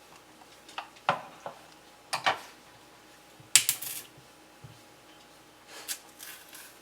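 Tableware being handled: a string of light clinks and knocks, with the loudest, brightest clatter about halfway through.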